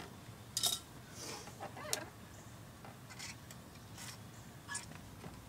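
Faint handling noises of a boat propeller on a sterndrive: a few scattered small clicks and rubbing as hands grip and move the propeller.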